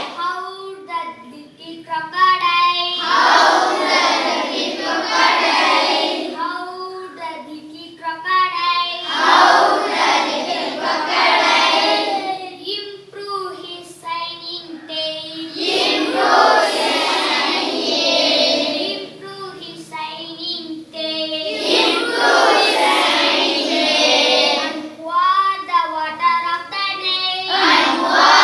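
A class of schoolboys singing an English poem as call and response: one voice sings a line, then the whole class sings it back together, trading turns every few seconds.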